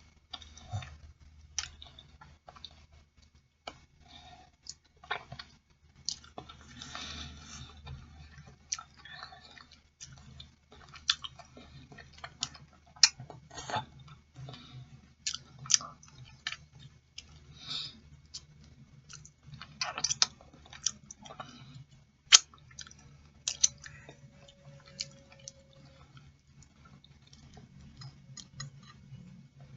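A person chewing and eating boiled chicken feet, with irregular wet clicks and smacks.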